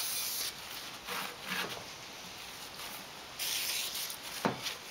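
Hand-tool work on the snowblower's metal plate: rubbing and scraping while its screws are driven into speed nut fasteners, with two short hissy scrapes and a sharp click near the end.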